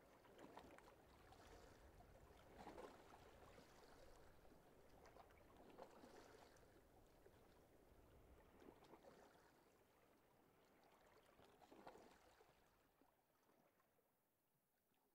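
Faint water lapping and sloshing in irregular swells every second or two, fading out near the end.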